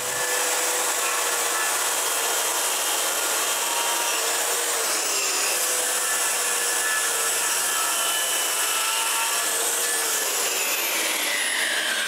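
DeWalt circular saw running steadily as it cuts a series of parallel kerfs into the end of a timber beam, its whine falling in pitch near the end.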